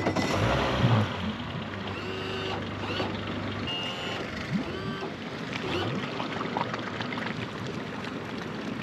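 Tow vehicle's engine idling with a low steady hum, shut off about four seconds in once it has stopped on the boat ramp. Short high-pitched beeps and chirps come and go throughout.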